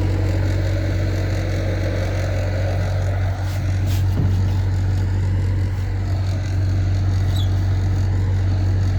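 A vehicle engine running steadily with a low drone. A short, sharp high-pitched sound cuts in about four seconds in.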